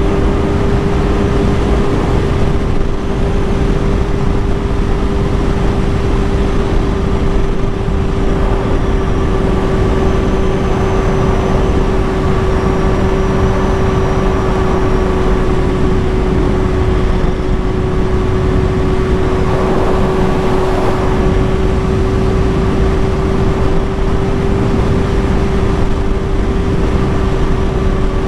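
Kawasaki Ninja ZX-6R inline-four running at a steady cruise, holding one constant engine note, with wind rushing over the microphone.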